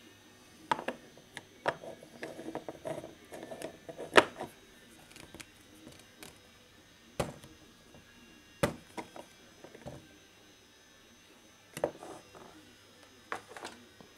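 Hard sections of a mini-nuke replica being handled, fitted together and set down on a wooden workbench: a series of sharp clicks and knocks, loudest about four seconds in, with a short stretch of rattling before it.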